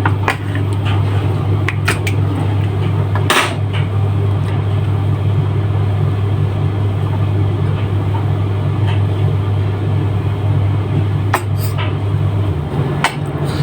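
Steady low mechanical hum from a running appliance motor or fan, whose deepest part cuts off about twelve seconds in. A few sharp clicks and taps of kitchen utensils or containers sound over it while honey mustard is added to the chicken.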